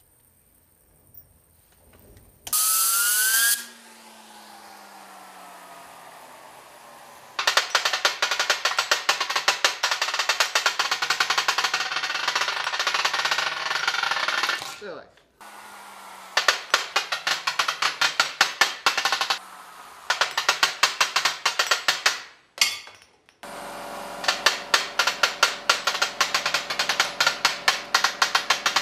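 Homemade fidget spinner being spun up and run down: a whirring tone falling in pitch as it slows, then several long bursts of very fast clicking that stop abruptly and start again.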